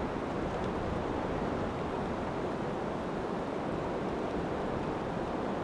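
Steady rush of river rapids, water running fast over rocks.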